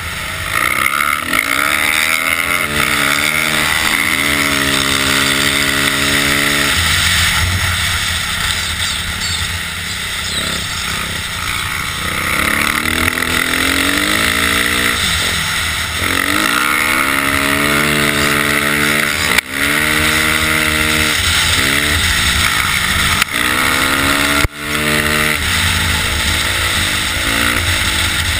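Motocross bike engine heard on board, revving up and dropping back again and again as the bike accelerates and shifts, over a steady rushing noise. Two sharp knocks come about two-thirds of the way through.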